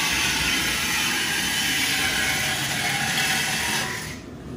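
Handheld air tool running steadily under the car's exhaust with a hissing, rattling whir, then cutting off abruptly about four seconds in.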